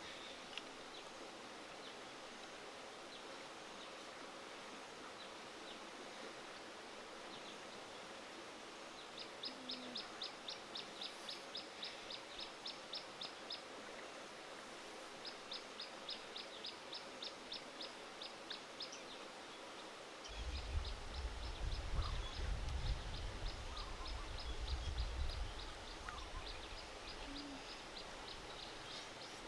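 A bird calling in long runs of short, quick, evenly spaced high notes, about three a second, three runs in all, over faint outdoor hiss. A low rumble comes in about two-thirds of the way through and fades after a few seconds.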